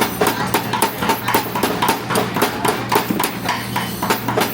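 MIG welder arc crackling in rapid, irregular pops as wire is fed into a weld, over a steady low electrical hum.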